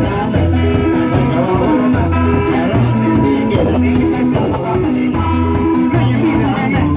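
Live band playing: guitars repeat a short riff over a low figure that comes round about every one and a half seconds.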